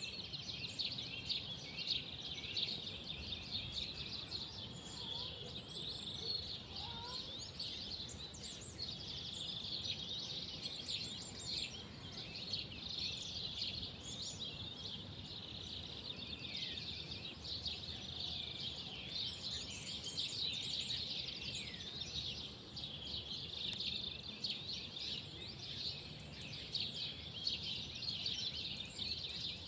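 Many small birds chirping and twittering without a break, with a couple of lower whistled notes about five to seven seconds in, over a low steady background rumble.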